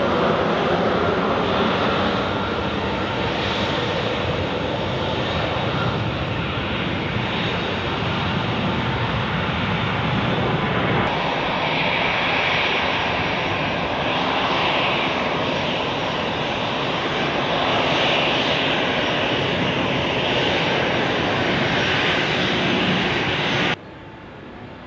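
Jet engines of a Boeing 737 and an Airbus A330 at takeoff thrust on the runway: a loud, steady roar with an abrupt change about eleven seconds in, cutting off suddenly near the end.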